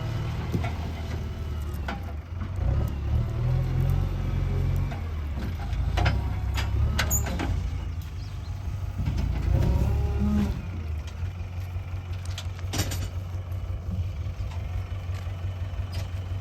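Diesel engine of a JCB 3DX backhoe loader running under load while dozing soil, its pitch rising and falling as the throttle changes. Occasional sharp knocks come through.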